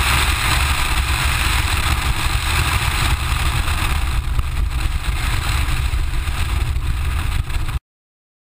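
Mitsubishi Lancer Evo IX rally car's turbocharged 2.0-litre four-cylinder running as the car drives along, heard with wind rush on a camera mounted outside on the car's side. The sound cuts off abruptly near the end.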